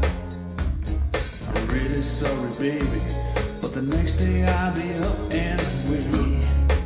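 A recorded song played back through a Marantz PM7200 stereo amplifier and floor-standing speakers, with deep bass notes, drum hits and a wavering melody line.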